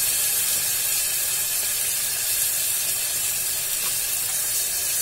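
Soaked chana dal and fried onion-tomato masala sizzling steadily in a hot pressure cooker.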